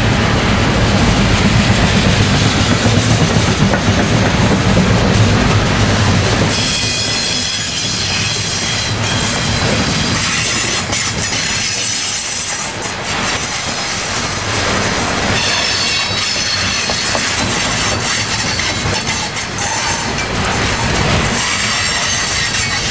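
Freight train of loaded refrigerated boxcars rolling steadily past, steel wheels clattering over the rails. From about six seconds in, thin high wheel squeal rides on top.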